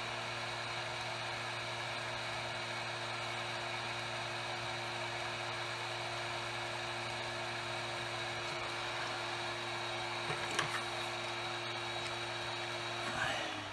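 Steady whirr of a small electric fan motor with a fixed hum, starting to wind down with falling pitch right at the end. A couple of light clicks about ten and a half seconds in.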